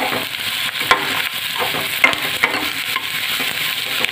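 Chopped onions and raw mango pieces sizzling in hot oil in a steel kadhai, stirred with a slotted steel spoon that clicks and scrapes against the pan a few times.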